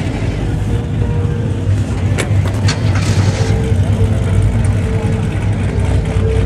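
A vehicle engine running with a steady low rumble, under background voices, with two sharp clicks about two seconds in.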